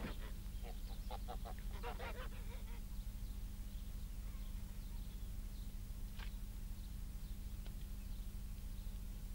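Farmyard fowl calling: a quick run of short calls in the first two seconds or so, then a single call about six seconds in, over a steady low hum on the film soundtrack.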